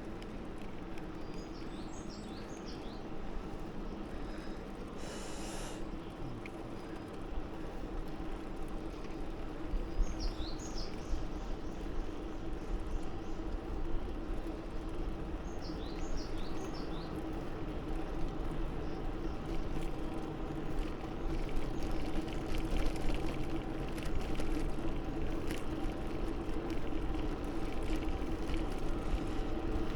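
Steady wind and rolling noise of a bicycle ride with a continuous hum, growing a little louder in the second half. A bird chirps in three short quick runs of high notes.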